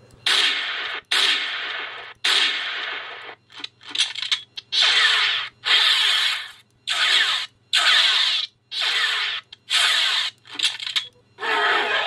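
K98 bolt-action rifle gunshot sound effects played through small loudspeakers from an Arduino-driven MP3 player module: about a dozen shots, most about a second apart, with a few short clicks around the fourth second. A steady low hum runs underneath.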